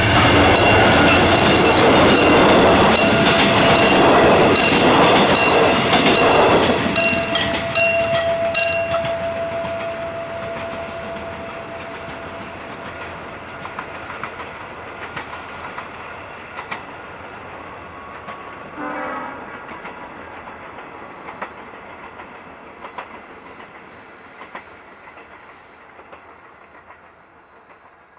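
Train passing over a railway level crossing, wheels clattering on the rails, loud for the first several seconds and then fading away. The crossing's warning bell dings rapidly over the passing train and stops about nine seconds in.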